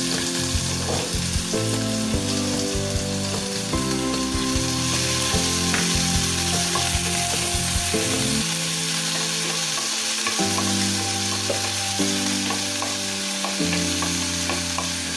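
Chopped onions sizzling steadily in hot oil in a nonstick frying pan, stirred and scraped with a wooden spatula, with a few light knocks in the first couple of seconds.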